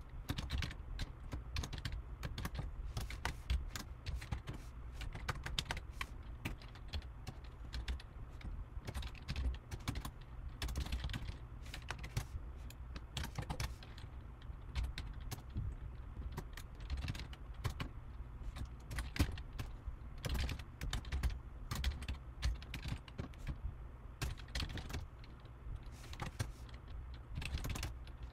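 Typing on a computer keyboard: a quick, uneven run of key clicks with short pauses, over a low steady hum.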